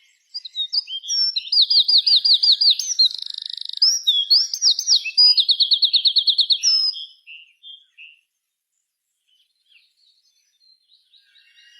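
A songbird singing a loud, varied song: quick series of repeated rising whistled notes with a buzzy trill between them, lasting about seven seconds and then dying away. Faint chirps follow, and birds start chirping again near the end.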